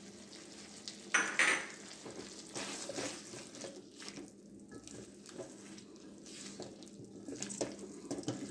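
Slotted spatula scraping and clinking against a hammered stainless-steel pan as chicken and vegetables in a cream sauce are stirred and tossed, with a louder clatter about a second in and the food sizzling underneath.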